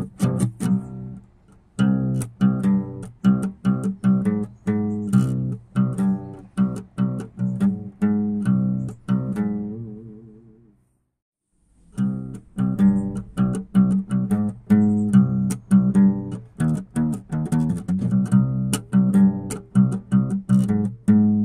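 Background music of plucked strings with a steady beat. About ten seconds in it dies away, there is a second of silence, and then it starts again.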